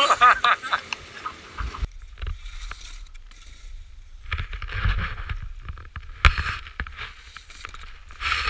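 Snowboarding on groomed snow: board edges scraping and hissing over the snow in several swelling bursts, over a deep rumble of wind on the moving camera's microphone.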